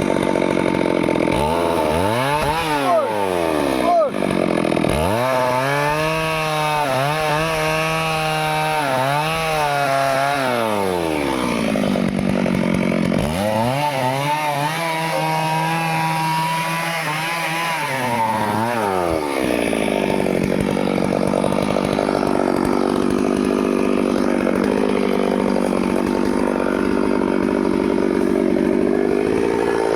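Stihl two-stroke chainsaw running hard while cutting a tree, its engine pitch rising and sagging in several long sweeps, then settling into a steadier, rougher cutting sound for the last third.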